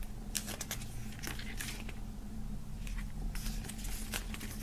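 Pages of a glossy CD booklet being turned by hand: quiet paper rustling with a few light flicks of the pages.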